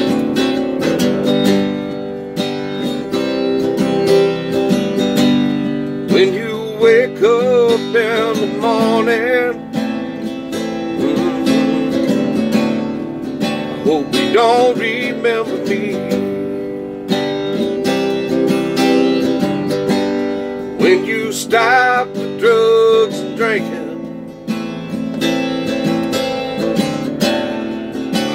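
Acoustic guitar strummed in a slow song, with a man's voice singing without words in three short stretches, about six, fourteen and twenty-one seconds in.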